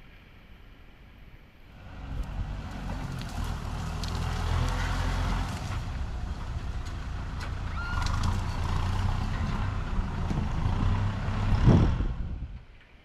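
A heavy machine's engine running hard, starting about two seconds in, with scattered knocks and clanks over it. It swells to its loudest near the end, then cuts off.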